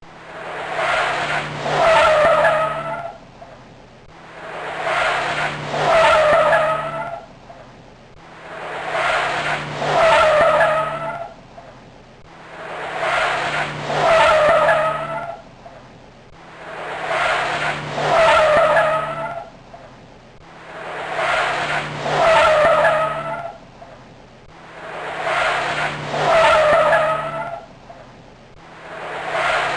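A car sound effect played on a loop, repeating about every four seconds. Each time, the car's sound swells up to a peak with a high, wavering squeal of skidding tyres over a steady low engine note, then fades.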